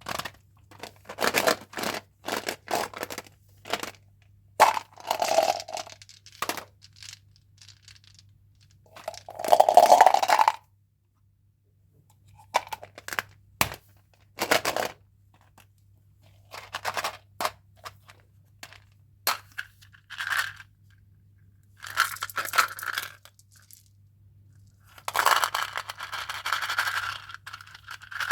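Candy and gum packaging being handled and opened by hand: plastic wrappers crinkling and tearing in irregular bursts, with sharp clicks and taps between them.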